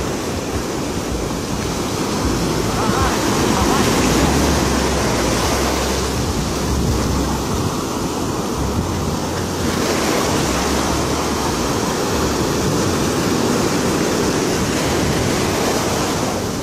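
Ocean surf breaking and washing up a sand beach, a steady rushing that swells louder a few seconds in, with wind buffeting the microphone.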